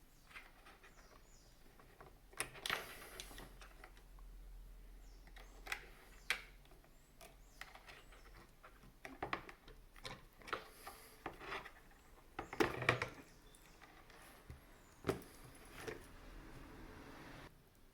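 Scattered clicks, knocks and light rattles of small parts and tools being handled while working inside a bean-to-cup espresso machine, over a faint low hum.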